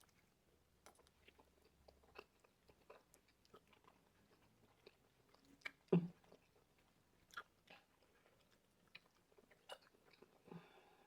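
Quiet, close-up chewing and biting of food: scattered soft mouth clicks, with one louder thump about six seconds in.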